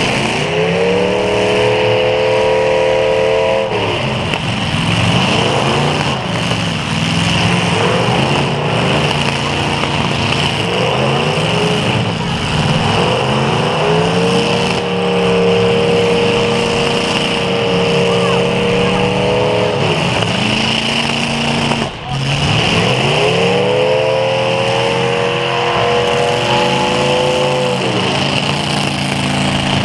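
Demolition derby car engines revving hard, rising and holding at high revs three times, near the start, in the middle and again late, with lower running between.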